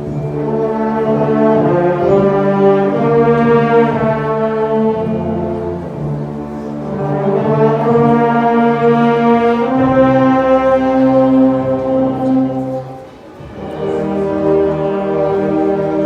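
Large wind band playing slow, held brass chords that swell and fade, with one short drop in loudness about two-thirds of the way through before the next chord enters.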